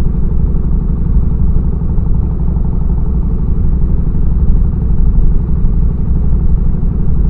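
Yamaha Road Star 1700's air-cooled V-twin engine running steadily as the motorcycle cruises along.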